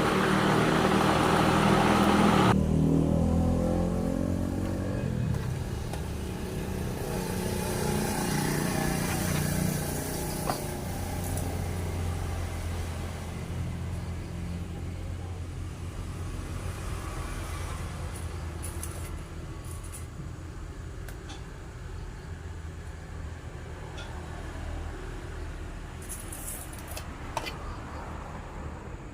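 Electric woodworking power tool cutting, then switched off about two and a half seconds in, its motor winding down with a falling whine. A low steady hum follows and slowly fades.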